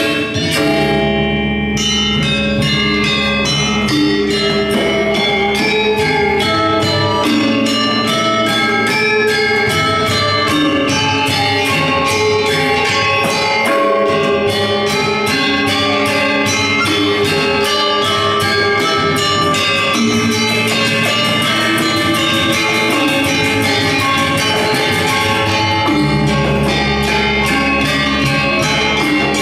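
Balinese gamelan gong kebyar playing fast, interlocking bronze metallophone strokes over a deep low gong tone. The strokes come faster in the second half, and the low gong tone swells back in strongly near the end.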